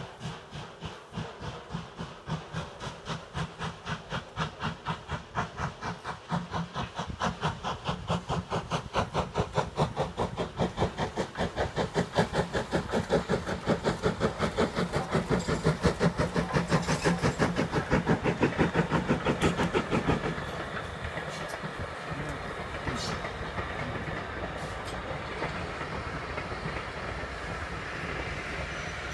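Steam locomotive No. 24 Calbourne, an LSWR O2 class tank engine, working a train with a steady, rapid exhaust beat that grows louder as it approaches. About twenty seconds in the beats fade as the engine goes by, leaving the rumble of the coaches rolling past with a few sharp clicks.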